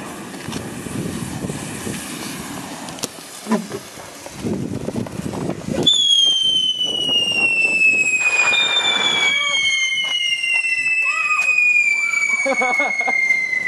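Whistling fireworks on the back of a homemade go-kart: about six seconds in a loud, shrill whistle starts and slowly falls in pitch, and a second whistle joins it a couple of seconds later, both still going at the end. Before the whistles there is a rough, noisy rumble as the kart is pushed off along the asphalt.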